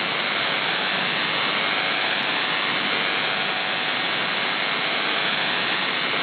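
Steady shortwave radio static from an SDR receiver tuned in upper sideband to 4625 kHz: an even hiss with no tone, buzz or voice in it.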